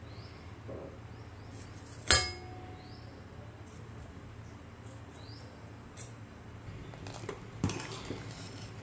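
A knife strikes a steel plate once about two seconds in, a sharp clink with a short ringing, while cutting rolled dough into strips. From about seven seconds in, a steel spoon clinks and scrapes against a pressure cooker while stirring dal. A steady low hum runs underneath.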